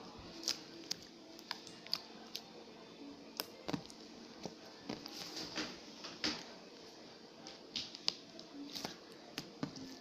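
Homemade slime being pressed and squeezed by hand, giving irregular sticky clicks and small pops.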